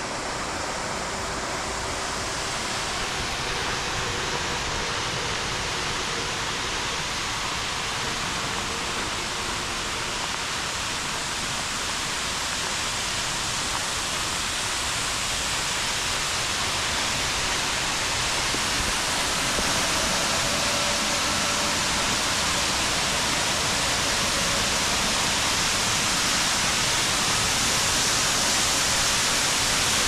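Steinsdalsfossen waterfall's falling water rushing steadily, slowly growing louder.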